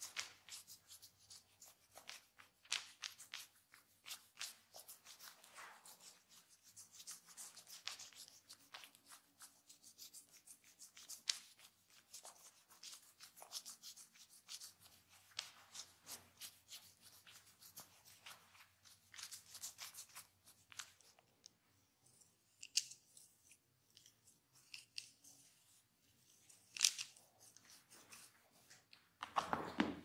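Handheld multi-prong head-scratcher massager drawn through curly hair, giving a faint, irregular crackle of short scratchy rustles as the prongs rub the hair and scalp.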